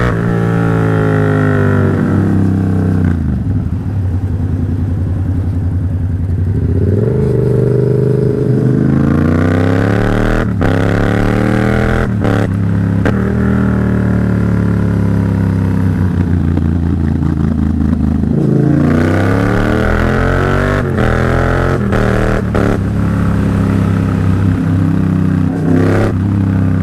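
Yamaha MT-07's parallel-twin engine running through an aftermarket AliExpress exhaust while riding. Its pitch repeatedly climbs with the throttle, drops sharply at each gear change and falls away when the rider slows, with brief sharp cracks here and there.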